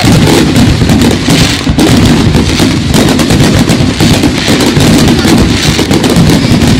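Fireworks going off in rapid, unbroken succession: loud, dense bangs and crackles with no pause between them.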